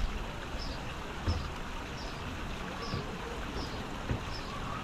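Wind rumbling and buffeting on the microphone, with a faint high chirp repeating about every three-quarters of a second.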